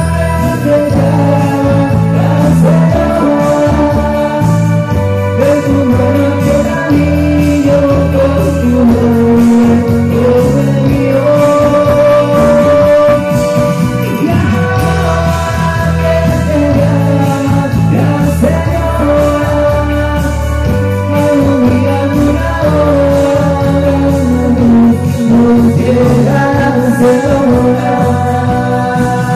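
A live romantic band playing a slow ballad: a held melody line over bass and a steady drum beat, with no clear words.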